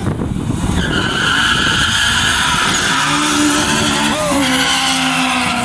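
Two drag cars, a Honda Civic and an Opel, launching off the line. Tyres squeal for about three seconds, then the engines pull at full throttle, with a sweep in engine pitch about four seconds in.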